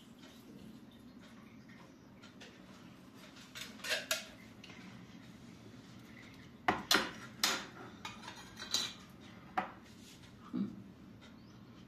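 Cutlery clinking against dishes during salad making: a pair of light clinks about four seconds in, then half a dozen sharper clinks at uneven intervals over the next four seconds.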